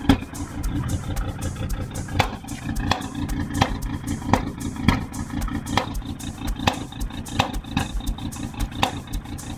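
Volvo S60 engine running through an exhaust with the catalytic converter cut out, a steady low rumble. Sharp clicks recur about every 0.7 s over it.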